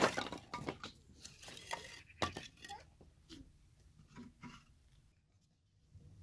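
Split firewood sticks knocking and clattering against each other and the oven wall as they are laid inside a clay pit oven (tandoor). Most of the knocks come in the first three seconds, the loudest right at the start, then only a few before it goes quiet near the end.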